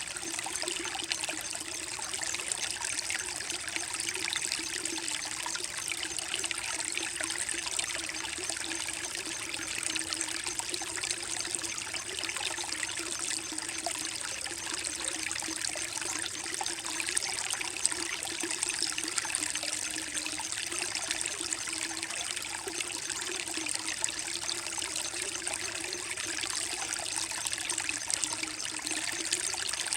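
Creek water flowing gently over mossy rocks: a steady, even rush with a low wavering note underneath.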